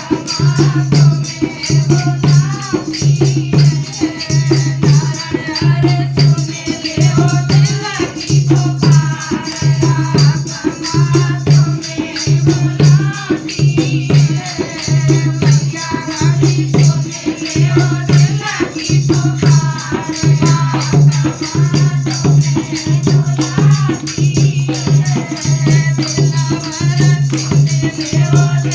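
Devotional bhajan music: a wavering melody line over a steady low bass pulse about once a second, with a shaker-like rattle.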